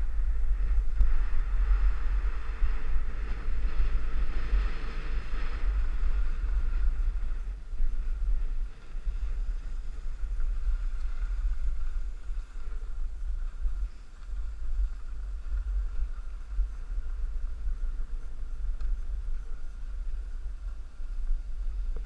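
Wind buffeting the microphone of a camera carried by a snowboarder riding down a groomed slope, a steady low rumble that rises and falls, with a fainter hiss of the snowboard sliding over packed snow that is strongest in the first six seconds or so.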